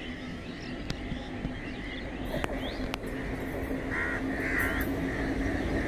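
Crows cawing a couple of times about four seconds in, over the low rumble of an approaching WAP-7 electric locomotive and its train, which grows steadily louder.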